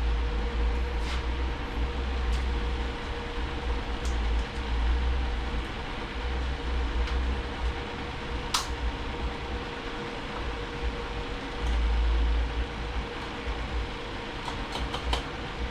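Steady low hum of workshop machinery or ventilation, with a few light metallic clicks as a snap ring is worked onto a transmission shaft; the sharpest click comes about halfway through.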